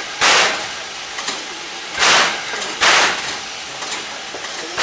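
Standing C11 steam tank locomotive with steam up, giving sharp hissing puffs of steam. There are three in a row, about a second or two apart, and a fourth right at the end.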